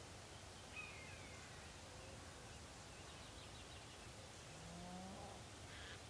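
Faint outdoor countryside ambience at dawn: a steady low rumble with a few distant bird chirps, and a brief low rising call about five seconds in.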